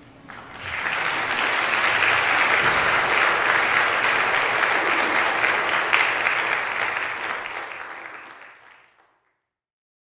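Audience applauding, swelling up within the first second and dying away over the last couple of seconds until it cuts off.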